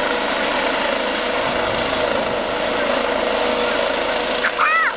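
Eurocopter EC135 air-ambulance helicopter flying low overhead: a steady rotor and turbine sound with a constant whine, drawing nearer.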